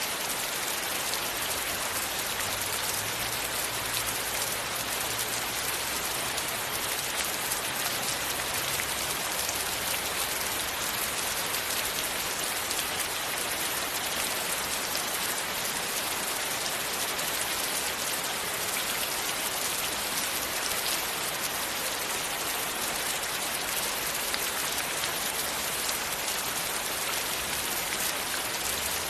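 Steady rain falling: an even hiss of many drops that holds unchanged throughout.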